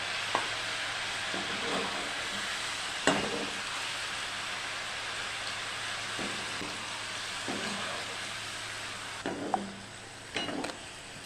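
Potato sticks deep-frying in hot oil on high heat for their second, crisping fry: a steady sizzle, with a few short utensil knocks against the pan.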